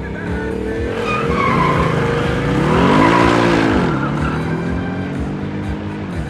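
Two Ford Mustangs launching from a drag-strip start line with their tyres squealing as they spin. The engine note climbs to a peak about three seconds in, then falls away as the cars pull off down the strip.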